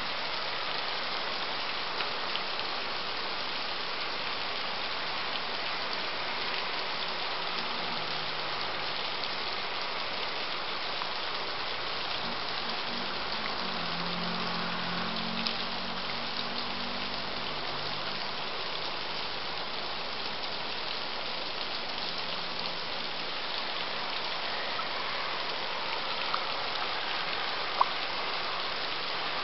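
Heavy rain falling steadily as an even hiss, with a faint low hum through the middle and a single sharp click near the end.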